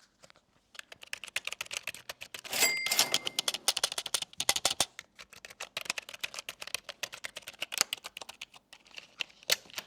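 Fast, irregular typing on a mechanical keyboard, a quick run of key clicks and clacks that starts about a second in. A brief ringing tone sounds among the clicks about two and a half seconds in.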